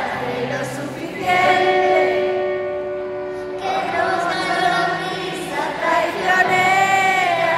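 A young girl singing a slow melody into a handheld microphone, with long held notes in the middle.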